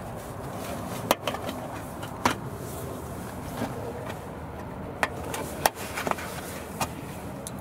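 Plastic push-pin retainer clips on the cover over a Toyota RAV4's radiator support being pried out with a plastic trim removal tool: a series of sharp clicks and snaps at irregular intervals.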